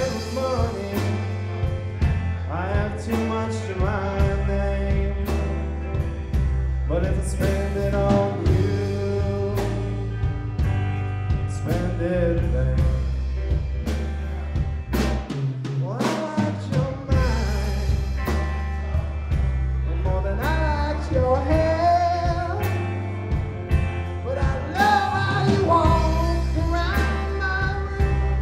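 Live rock band playing a song: electric guitars, bass guitar and drum kit, with lead vocals sung over them. The bass drops out for a moment about halfway through.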